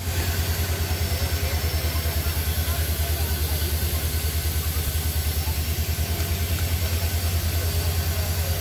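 Large diesel engine idling: a loud, steady low throb pulsing evenly several times a second.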